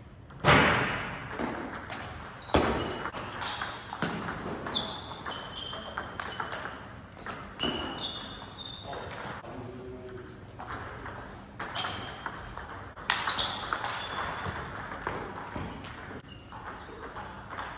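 Table tennis play: the celluloid ball clicking on bats and table in irregular rallies, with a few louder strikes and brief high squeaks, over faint background voices.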